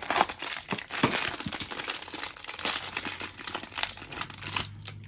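Crinkly blind-box packaging being handled and torn open, a dense irregular crackling and rustling that thins out near the end.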